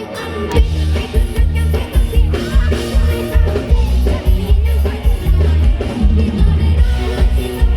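Loud music with a heavy, pulsing bass beat and singing.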